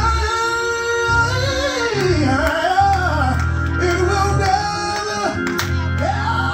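Recorded gospel song: a solo voice sings a slow melody that slides up and down over held bass notes.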